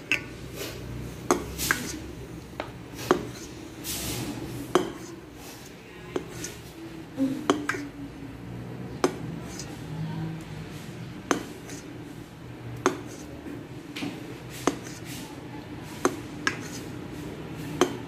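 A spoon knocking and scraping against a metal pot again and again while a whole chicken is basted with marinade: sharp, short taps at uneven intervals, about one a second.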